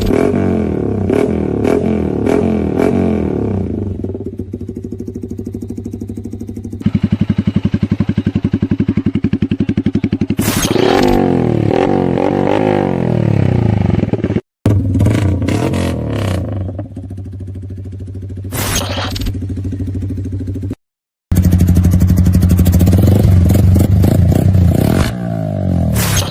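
Yamaha R15 M's single-cylinder engine revving through aftermarket exhausts, the pitch rising and falling with each throttle blip. Several short clips are cut together, with two brief breaks between them.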